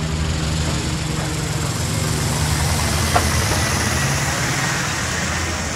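Airliner cabin noise in flight: a steady low engine drone under an even rushing hiss.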